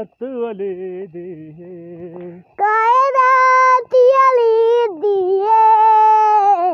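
Wordless singing: a lower voice steps through short notes for the first couple of seconds, then a high child's voice holds long, drawn-out notes with small slides between them.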